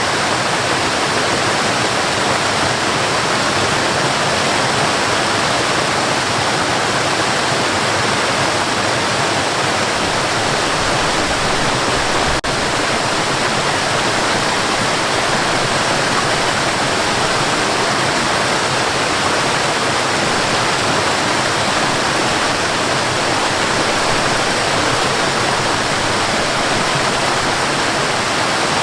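Cascading water: a steady, dense rushing of falling water, even from low to high pitches, with a momentary dropout about halfway through.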